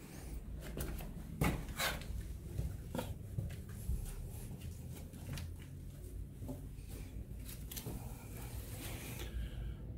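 Scattered light clicks, knocks and scuffs over a steady low rumble: handling noise and movement around a handheld camera in a small stone crypt.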